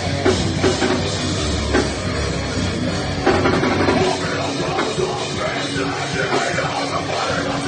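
Rock band playing live, with a drum kit driving it; the deep bass drops away about four seconds in while the rest of the band plays on.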